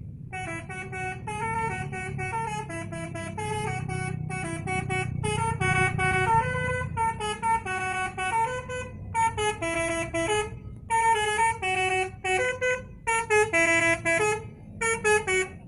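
Indonesian bus telolet horn playing a tune of stepped, held notes, several pitches sounding together. The tune breaks off briefly several times and stops near the end, over a steady low rumble.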